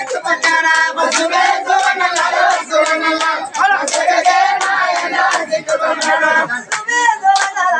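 A group singing a Telugu folk devotional song (golla chaduvu), with long held notes, to steady sharp hand clapping.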